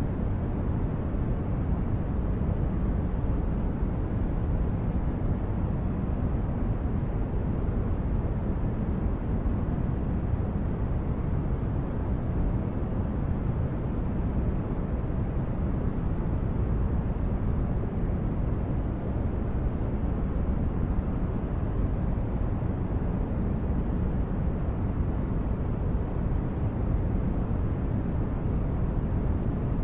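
Sci-fi starship interior ambience: a steady, deep brown-noise hum, strongest in the low end and soft in the highs, that does not change.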